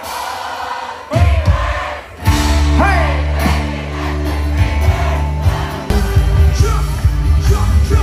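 Live folk-rock band with accordion, acoustic guitars and drums playing, with singing. The bass and drums come in strongly about two seconds in, and a steady beat runs through the second half.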